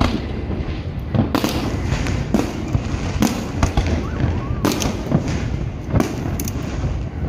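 Aerial fireworks shells bursting overhead: a string of about seven sharp bangs at uneven intervals over a steady low rumble.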